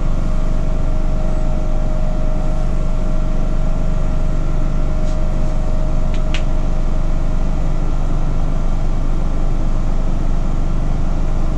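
Infrared BGA rework station running while it heats a circuit board: a steady electrical hum and drone with a constant mid-pitched tone, and a few light clicks about halfway through.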